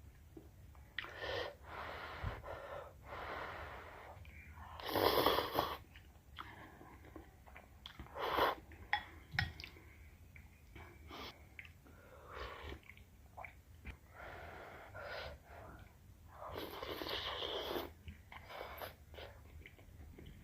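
Soupy noodles being slurped: a series of noisy slurps, each up to about a second long, the loudest about five seconds in and a longer one near the end, with soft chewing and small clicks between.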